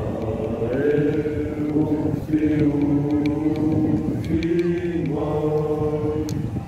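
A group of young men singing together in unison, in slow phrases of long held notes.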